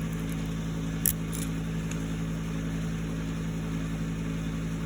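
A steady low mechanical hum, with two light clicks about a second in as the padlock's key is handled.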